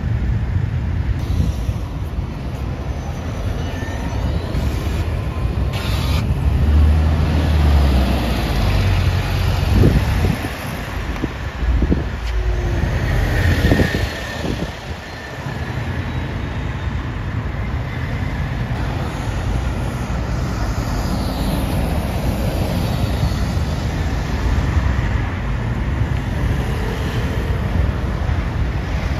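Busy city road traffic: double-decker buses and cars running through a junction, a steady engine rumble with louder swells midway as a bus passes close.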